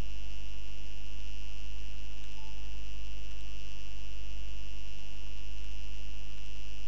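Steady electrical mains hum with a constant high-pitched whine, unchanging throughout.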